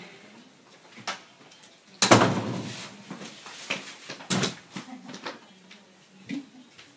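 A run of knocks and thumps from a wooden door and a backpack. The loudest is a single bang with a short ring about two seconds in, like a heavy wooden door being shut hard. A thud follows about four and a half seconds in as the backpack is thrown onto a bed.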